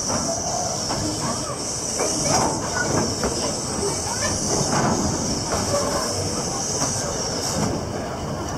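Puffing Billy narrow-gauge steam train pulling slowly out, its wooden carriages rolling past with wheels clacking and squealing, over a steady high hiss.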